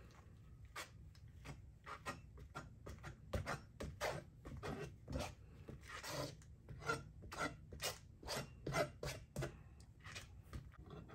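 Metal spatula scraping and spreading a wet acrylic base coat (phthalo blue with pouring medium and Floetrol) across a canvas, in repeated short strokes about two a second.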